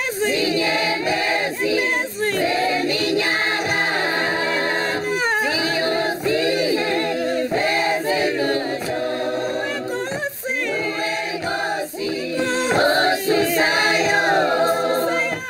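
Choir singing, several voices moving together over a steady low held note.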